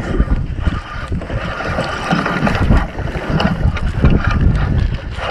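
Wind buffeting the microphone in uneven gusts over choppy water lapping against a small boat.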